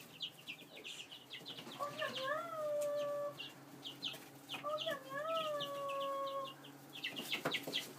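Chickens: chicks peeping rapidly and continuously, while an adult chicken gives two long, drawn-out calls, one about two seconds in and another near the middle, each rising and then held level.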